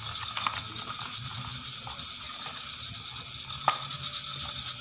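Hands opening a small cardboard piston box: packaging rustling and handling, with a few quick clicks near the start and one sharp snap of the cardboard about three-quarters of the way through. A steady high-pitched background drone runs underneath.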